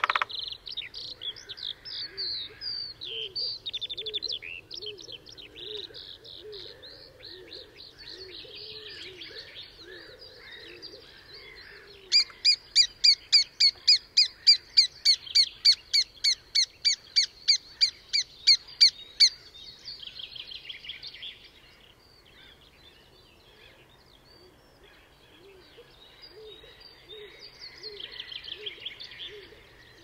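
Spring birdsong from several birds. Midway, one bird gives a loud series of about twenty-five evenly spaced high call notes, roughly three a second for about seven seconds, and fainter lower repeated notes run underneath.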